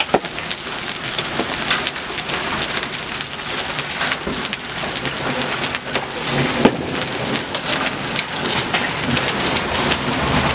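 Hailstorm: a dense, continuous clatter of hailstones and rain striking pavement and surfaces, with sharper single hits scattered through it. It grows slightly louder toward the end.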